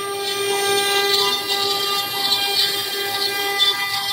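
CNC router spindle running at speed, a steady high whine with several overtones, while its small carving bit cuts a 3D relief panel.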